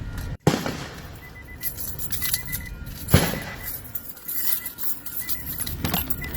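Three sharp firework bangs, heard from a distance: one just after the start, the loudest about three seconds in, and one near the end, each followed by a short ringing tail.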